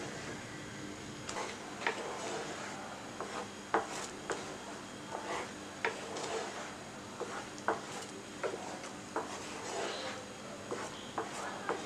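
Wooden spatula stirring and scraping a thickening milk-and-cornflour pudding in a pan, with irregular light knocks of the spatula against the pan.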